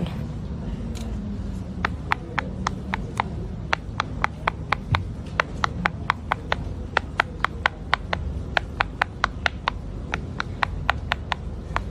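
Bubbles of a silicone pop-it fidget toy being pressed and popped one after another: a steady run of sharp little pops, about four a second, starting about two seconds in, over a low steady hum.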